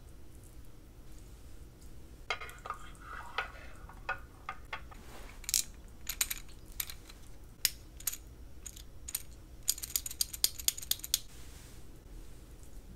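Sharp plastic clicks and taps as a candy dispenser toy is handled close to the microphone. They come scattered at first, then in a fast run of about ten clicks over a second and a half near the end.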